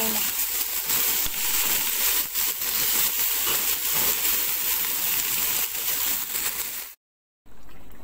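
Okra frying in hot oil, a steady sizzling hiss with crackles that cuts off suddenly about seven seconds in.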